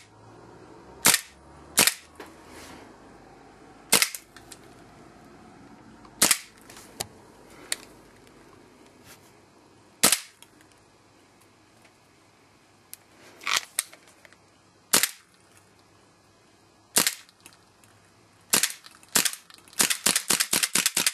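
WE Colt 1911 gas blowback airsoft pistol firing single shots, each a sharp crack with the slide cycling, at irregular gaps of one to four seconds. A fast string of clicks comes near the end, as the gas in a cold magazine runs out.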